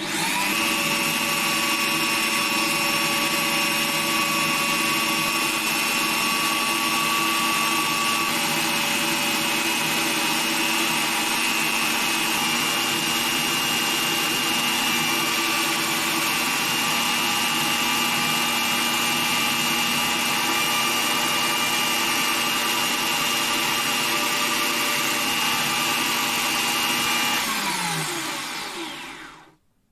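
Electric drill motor spinning up, then running steadily at speed with a steel awl blade turning in its chuck while abrasive paper is held against the blade to polish it. Near the end the motor is released and winds down with a falling whine.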